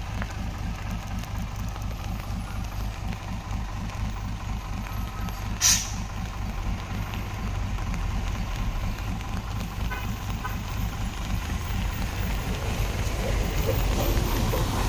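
Heavy diesel truck engine running steadily at low revs with a deep, pulsing drone that grows louder over the last few seconds. A short, sharp hiss about six seconds in.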